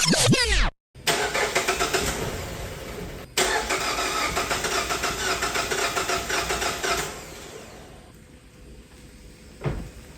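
Starter cranking the 2021 Mazda CX-5's 2.5-litre four-cylinder engine in two runs with a short break about three seconds in, without the engine catching: a crank-no-start, here after a DIY spark plug and ignition coil replacement. The cranking fades out around seven seconds in. A brief sweeping sound ends about half a second in.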